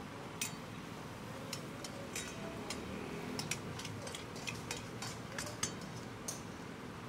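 Metal spatula clicking and tapping against an iron karahi as a curry is stirred: a dozen or so sharp, irregular taps over a steady low hiss.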